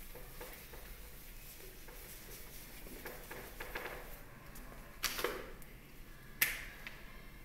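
Two short knocks in a quiet room, the first about five seconds in with a brief rustle after it, the second a sharper click a second and a half later, with faint scattered clicks before them.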